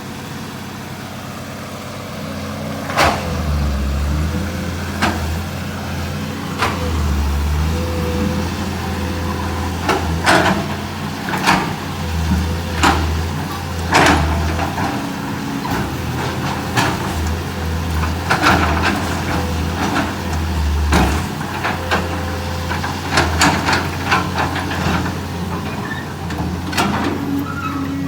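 A 320 excavator's diesel engine working under varying load, swelling in surges as it pries, with repeated sharp knocks and cracks from the bucket and stumps being levered out.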